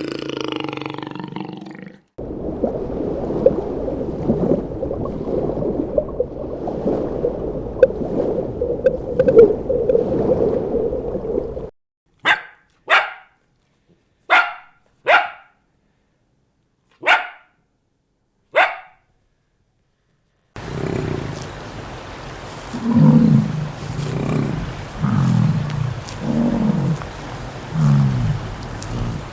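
Dog vocalising. A long stretch of rough, continuous growling comes first, then six short sharp barks spaced about a second apart, then a run of lower barks about once a second.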